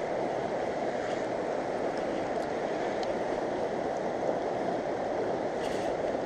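Mountain river water rushing steadily over rocks, an even unbroken wash.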